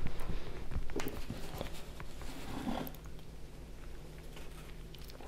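Cardboard box being handled: a few taps and knocks with some rustling, loudest in the first second or so and then quieter.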